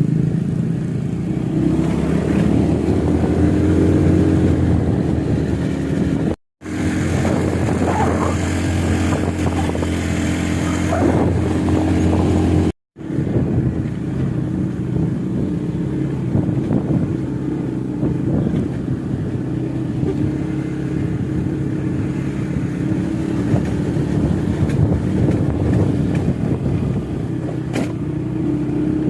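Motor vehicle engine running steadily under load on an uphill climb. It is broken by two brief gaps to silence.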